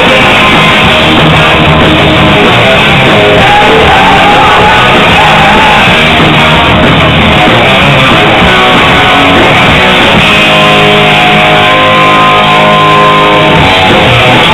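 Hard rock band playing live and very loud: electric guitars, bass and drums in a dense, steady wall of sound. About two-thirds of the way in, long held notes ring over the band.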